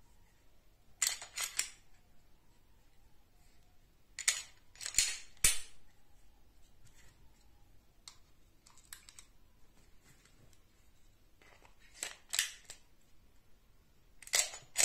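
Glock 19 Gen5 9×19 pistol being handled: sharp metal-and-polymer clicks and clacks in several short clusters a few seconds apart, with softer clicks about eight seconds in as a cartridge is pressed into the magazine.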